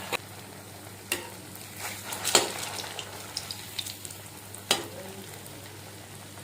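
Egg pakoras, batter-coated boiled eggs, deep-frying in hot oil in a kadai: a steady sizzle with a few sharp clicks.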